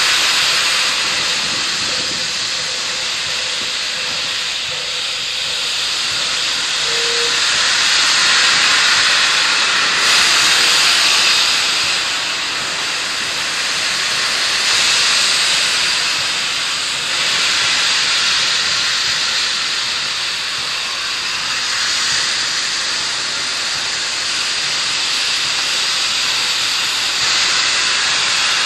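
Nickel Plate Road 765, a 2-8-4 Berkshire steam locomotive, venting steam in a loud, steady hiss that swells and eases every few seconds.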